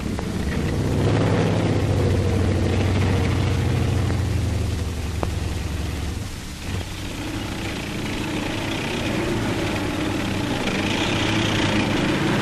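Engine of an M4 medium tank dozer running, steadiest and loudest in the first half. It drops off briefly about six seconds in, then picks up again.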